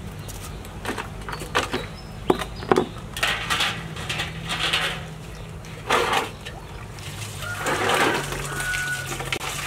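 Knocks and short scrapes of a metal basin and a plastic tub being handled and set down on a concrete floor, over a steady low hum.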